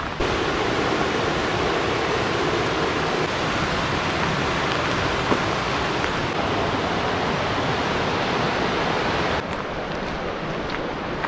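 River rapids rushing through a wooded gorge: a steady roar of running water that drops somewhat about nine seconds in, with a few faint footsteps on the path near the end.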